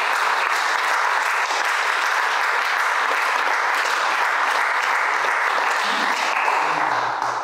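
Audience applauding: dense, even clapping that holds steady, then fades out at the very end.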